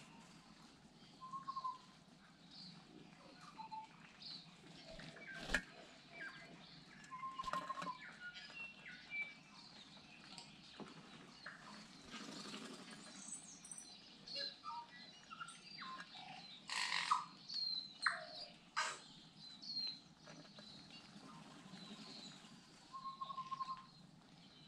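Tui calling: a scatter of short whistled notes, chirps and sharp clicks, with the loudest burst of calls about two-thirds of the way through.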